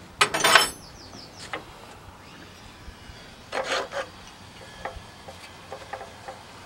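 Tools and metal engine parts being handled: two short bursts of scraping and rubbing, just after the start and again about three and a half seconds in, with a few light clicks between.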